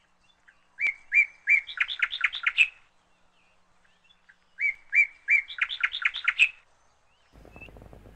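A songbird sings the same short phrase twice, each about two seconds long: a few level whistled notes, then a quick run of chirping notes. Near the end a faint low rumbling noise comes in.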